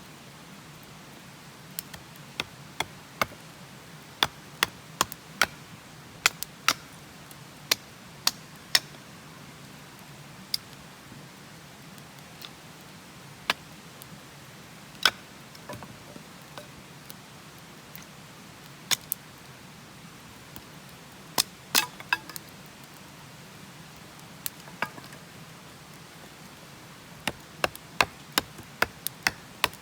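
Wood fire crackling: sharp, irregular pops of burning firewood, some coming in quick clusters, over a steady low background.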